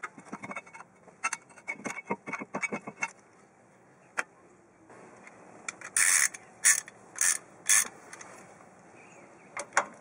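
Metal clicks and clinks as worn brake pads are worked out of a disc brake caliper bracket, in a quick run over the first three seconds. Past the middle come four short, loud rasping bursts about half a second apart.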